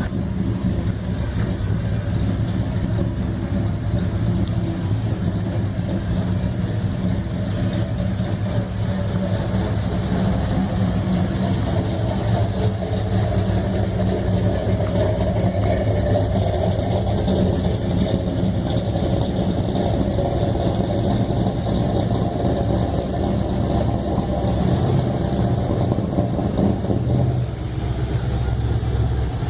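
Car engines idling and creeping past in a slow line: a steady low rumble that shifts slightly near the end.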